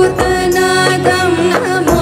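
Instrumental passage of a devotional Shiva hymn: a melody line over a steady drone and drum strokes.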